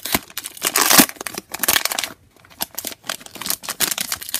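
Foil wrapper of a Pokémon booster pack crinkling as it is pulled open and the cards are drawn out. The loudest rustle comes about a second in, with a short lull near the middle.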